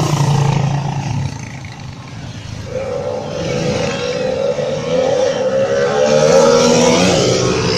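Tuned drag-race motorcycle engine running, then from about three seconds in a long rising engine note as it accelerates hard, which breaks off near the end.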